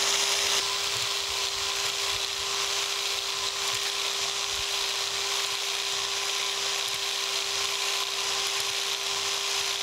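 Biax electric power scraper running steadily, its blade cutting a rough crosshatch of scrape marks into the iron dovetail way of an 1890s metal planer's cross head. It makes a continuous scratchy hiss over a constant steady hum.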